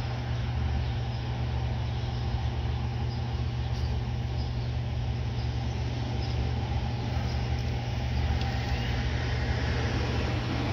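Steady low rumble of street traffic, a vehicle engine running.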